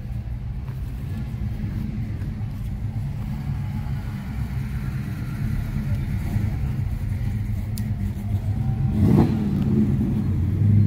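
Car engine running with a low rumble that grows louder, with a sudden louder burst about nine seconds in.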